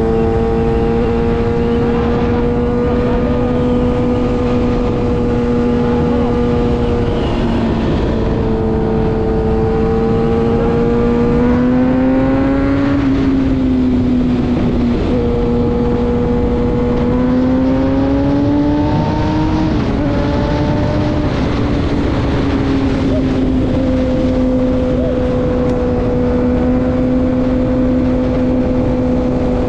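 Sport motorcycle engine running at highway speed, a steady drone over wind and road rush. Its pitch climbs twice near the middle as the throttle opens, then drops back and holds steady again.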